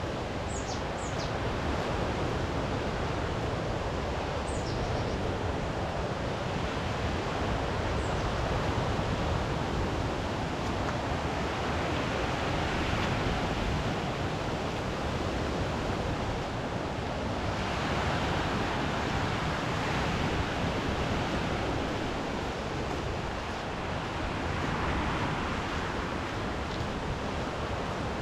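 Sea waves breaking on the shore with wind, a steady rush that swells every few seconds. A few short high chirps sound in the first eight seconds.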